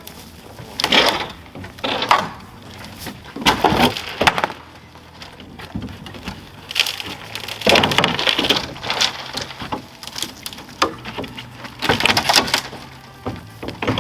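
Wood cracking and splintering in irregular bursts as parts of an old wooden storage shed are pried apart with a crowbar during demolition.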